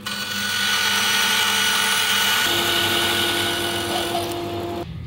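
Handheld wood router cutting a tenon in a wooden rail: a steady motor whine over the hiss of the cut, building over the first second and stopping abruptly near the end.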